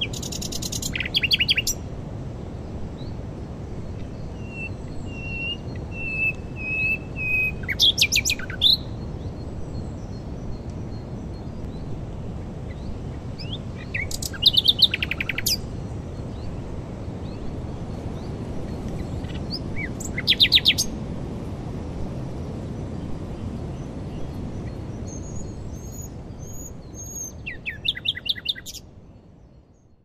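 Common nightingale singing in a high wind. Separate phrases of fast repeated notes and rattles come every six seconds or so, one of them a run of slow whistled notes, over a steady rush of wind. The sound fades out near the end.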